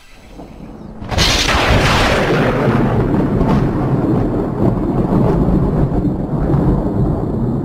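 Thunder sound effect: a sudden loud crack about a second in, then a long low rumble that carries on.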